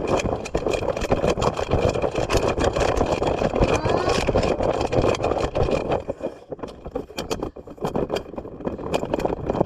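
Plastic magnetic building tiles rattling and clattering as they are shaken hard. The dense rattle thins to scattered clicks about six seconds in.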